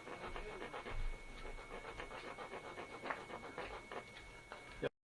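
Wood chisel paring leftover wood off a small cedar wheel: a quick run of short scraping, chipping strokes, with a louder knock about a second in. The sound cuts off suddenly near the end.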